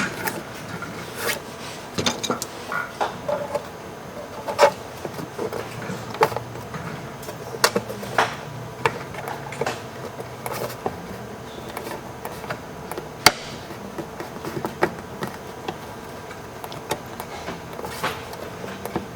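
Irregular light clicks and taps, with a few sharper knocks, as brackets are fitted back onto a Panasonic Toughbook CF-30 laptop's top cover by hand.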